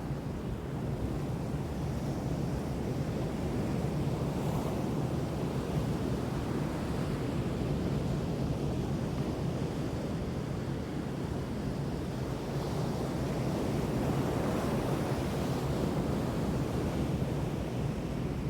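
Ocean surf washing on a beach: a steady rush of waves that swells louder twice as sets come in.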